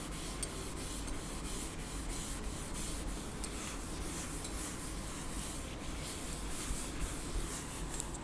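Board duster rubbing over a chalkboard, wiping off chalk writing: a soft, steady scrubbing.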